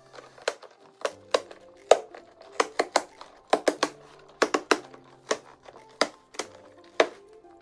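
Perforated cardboard tear strip on a toy box being pulled open, tearing in a quick series of sharp snaps, over soft background music.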